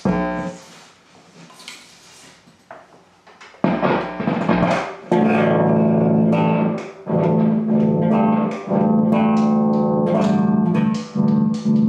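1982 Ibanez Roadster electric bass played through an amplifier as a test after its solder joints were reflowed and a loose wire reattached. A loud pop as the cable is plugged in, a few scattered notes, then from about four seconds in a run of held low notes changing pitch every second or two.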